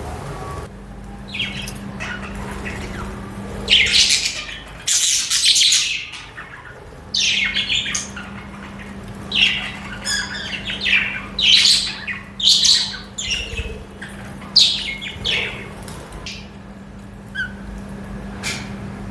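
Budgerigars chirping and squawking in irregular bursts, with a steady low hum underneath.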